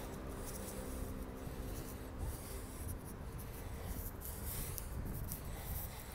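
Wind buffeting a handheld phone's microphone, a gusty low rumble, mixed with scratchy rustling from the phone being handled. A faint engine hum fades out in the first second or two.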